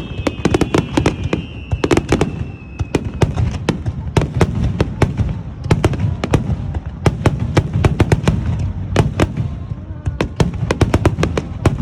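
Aerial fireworks going off in a rapid barrage: many sharp cracks and crackles over a steady low rumble of bursts. Several falling whistle tones sound together in the first three seconds and then fade.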